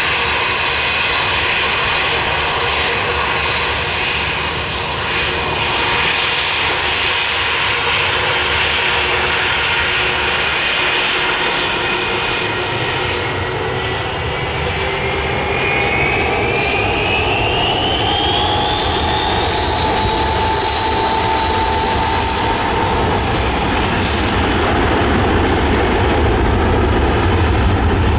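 Airliner engines running loudly: a steady roar with whining tones, one whine rising steadily in pitch over about ten seconds from the middle as the engines spool up. The low rumble grows towards the end.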